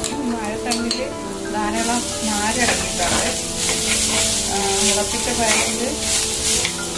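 Chopped banana stem and sprouted mung beans frying in hot oil in a clay pot while a plastic spoon stirs them. A couple of clicks of the container and spoon come in the first second, then the sizzle rises sharply about two seconds in as the vegetables spread into the oil. Background music plays underneath.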